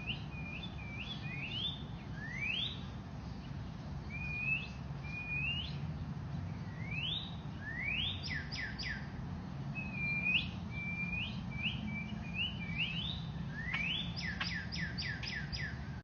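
Bird-like whistled calls: short flat notes and quick upward-sweeping whistles, repeated throughout, with quick runs of several sweeps about halfway through and again near the end. A steady low rumble runs underneath.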